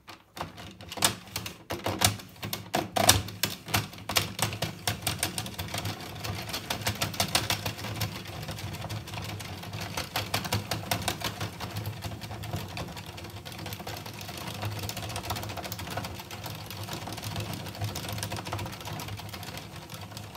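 Addi Express 22-needle circular knitting machine turned by its hand crank, knitting rounds: a fast clicking rattle of the plastic needles rising and falling as the carriage goes round. The clicks are spaced apart for the first few seconds, then run together into a steady clatter.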